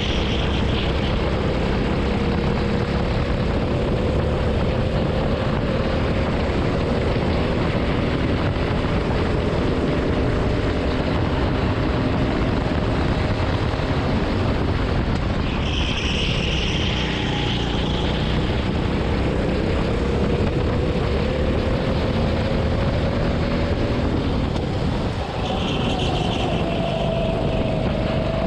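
Racing kart engine heard from the driver's seat, its pitch climbing slowly as the kart gathers speed and falling back as it slows for corners, twice over, under a steady rush of wind and road noise. A shorter, higher-pitched sound comes in three times, at the start, in the middle and near the end.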